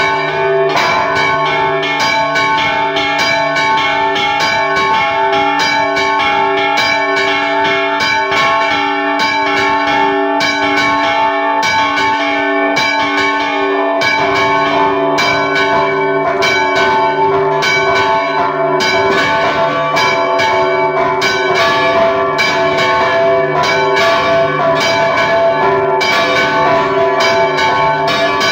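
Several church bells rung in a festive repique, clappers pulled by hand ropes so the bells are struck in quick succession and their tones overlap into one continuous, loud ringing, heard close up inside the belfry.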